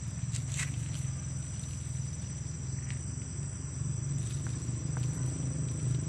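Night insects trilling steadily in a high, even tone, over a low steady hum, with a few faint clicks.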